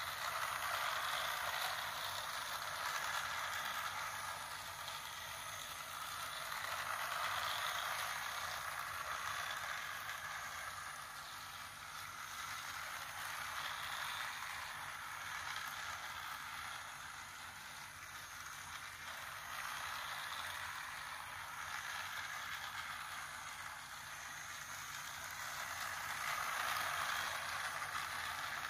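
Battery-powered plastic toy train running steadily around its plastic track. The sound swells and fades about every six to seven seconds.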